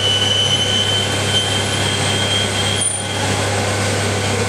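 CNC lathe running a machining cycle: a steady motor hum with a thin, high whine from the cut that fades out about three seconds in.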